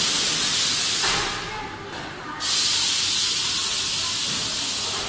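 Compressed air hissing in two sudden bursts: the first cuts off about a second in, and the second starts about two and a half seconds in and stops near the end.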